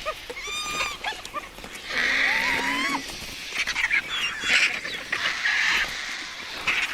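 Hyenas and vultures squabbling over a carcass. For the first three seconds there are pitched calls that rise and fall, and after that harsh hissing screeches.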